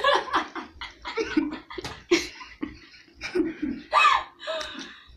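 Young women laughing in a string of short bursts.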